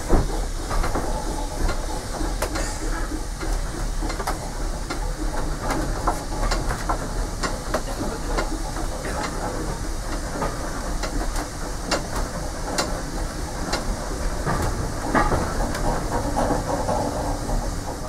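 Steam Rail Motor No. 93 on the move, heard from on board: a steady running noise with frequent irregular clicks and knocks, the kind made by wheels passing over rail joints.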